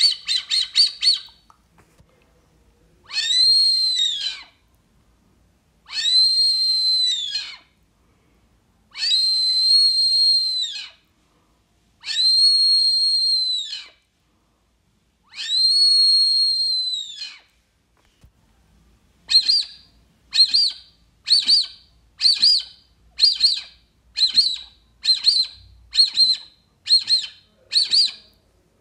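Maurilio Coelho wooden duck call (pio) blown to imitate the whistle of the Brazilian teal: a quick run of short notes, then five long whistles of about two seconds each, bending up at the start and down at the end, then a steady series of about ten short whistled notes about one a second.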